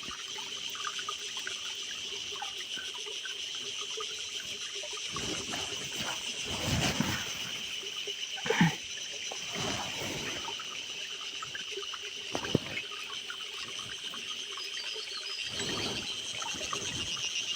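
Creek water trickling, with a few brief pours and splashes about five to seven seconds in, near nine seconds and again near sixteen seconds, over a steady high chirring of insects.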